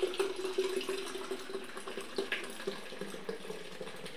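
Sprite being poured into a bottle that already holds milk: a continuous pour that grows quieter toward the end.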